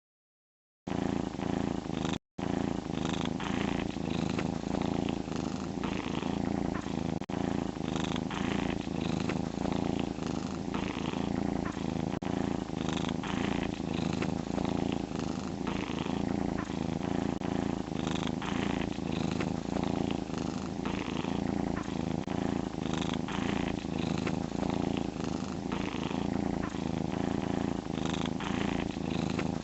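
Domestic cat snoring: a steady low rumble with a rasp on each breath, the breaths coming about once a second. It starts about a second in and drops out briefly just after.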